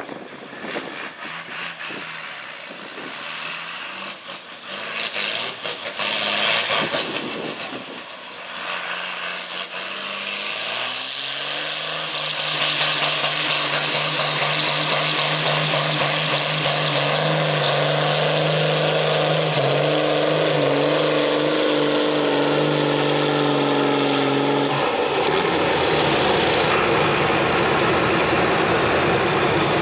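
John Deere farm tractor's diesel engine pulling a weight-transfer sled: uneven at first, then the revs climb about ten seconds in and hold at a steady high pitch under full load. Near the end the sound changes abruptly to a different steady engine.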